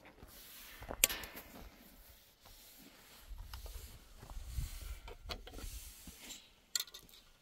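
Rubbing and scraping with scattered knocks, a sharp clack about a second in and another near the end.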